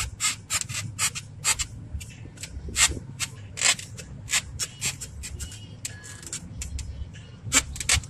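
Irregular rubbing and scraping crackles close to the phone's microphone, about two or three a second, typical of the phone being handled. Under them runs a steady low rumble.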